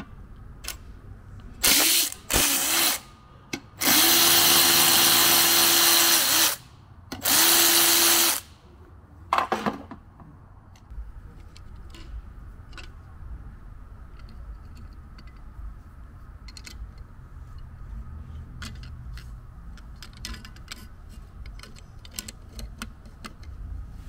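Cordless electric ratchet with a 10 mm socket running in about five bursts, the longest about three seconds, backing out the bolts that hold the heat shields and brackets on an alternator. After the bursts come scattered light clicks.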